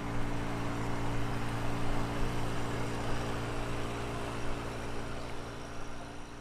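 An engine running steadily at an even speed, with a low hum and a haze of noise over it, easing a little toward the end.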